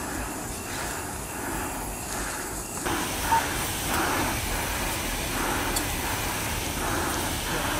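Steady rushing rumble of a wildfire burning through brush and trees. About three seconds in, a louder steady hiss joins as a fire hose sprays water onto the flames.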